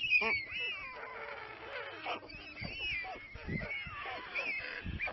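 White stork chicks giving repeated high, mewing, cat-like begging calls in the nest while an adult stands among them, with a few dull thumps underneath.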